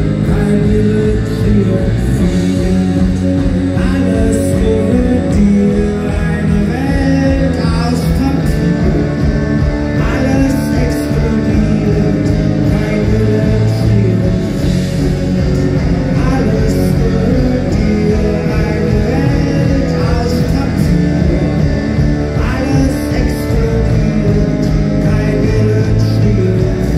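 Rock band playing live, loud: electric guitars, bass and drums with a steady beat, and a man singing.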